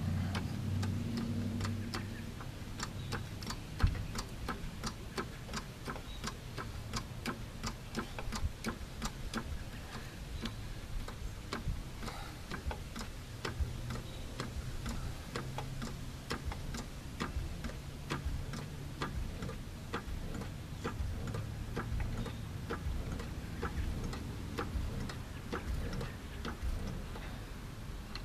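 Hydraulic floor jack being pumped by its long handle to lift a car, clicking steadily a few times a second with each stroke. One louder thump about four seconds in.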